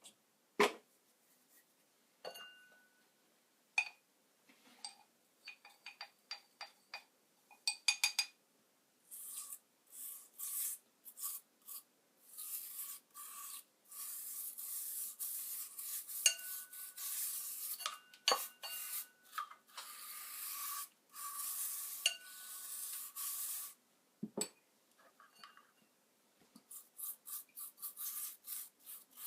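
Scattered light clicks and knocks, then long rasping rubbing strokes for about a quarter of a minute, ending in a quick run of short strokes: hand work on a part at the bench.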